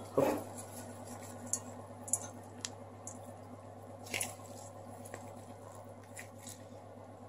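Quiet squishing and rustling of a gloved hand working a chunky filling of bacon, corn, goat cheese and nuts in a stainless steel bowl, with a few light clicks scattered through it, over a faint steady low hum.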